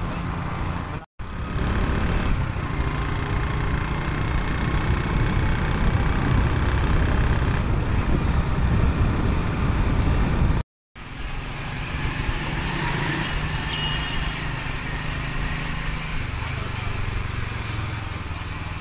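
Motorcycle being ridden on a road: engine running under a heavy rush of wind buffeting the microphone. The sound cuts out briefly twice.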